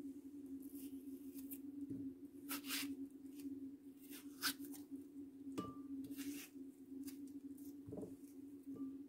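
Kitchen knife cutting honeydew melon into cubes in the hand: several short, soft slicing and scraping sounds, over a steady low hum.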